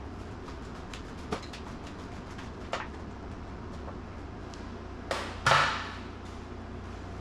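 Hand tools and metal engine parts being handled: a few sharp clicks and taps, then a louder scraping clatter about five seconds in, over a steady low hum.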